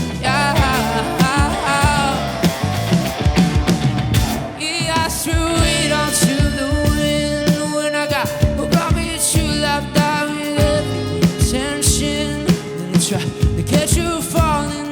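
Live band music: a singer over drums and backing instruments playing a rock-leaning song.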